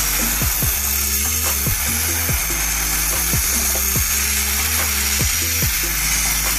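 Background music with a repeating bass line, over the steady whine and hiss of a 1 HP electric air compressor running.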